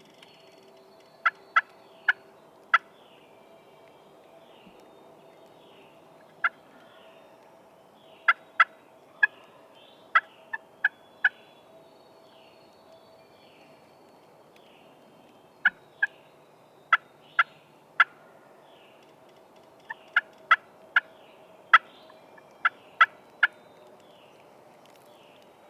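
Turkey clucks: about two dozen sharp, short single notes coming in loose runs of two to five, with pauses of a few seconds between runs. Small birds chirp faintly behind them.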